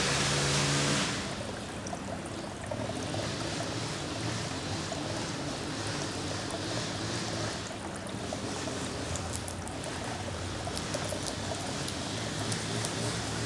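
Outdoor backyard ambience: a steady rushing noise, louder for the first second, with short high ticks scattered through the second half.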